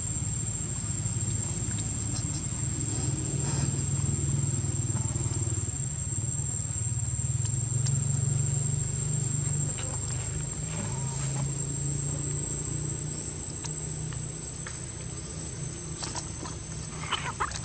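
A steady low hum with a thin, unbroken high whine over it; about a second before the end a young macaque starts screaming in short, shrill cries.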